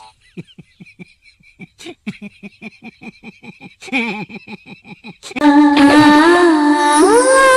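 Background music: a run of short, evenly spaced low notes over a faint held high tone, then about five seconds in a much louder held melody with sliding pitch takes over.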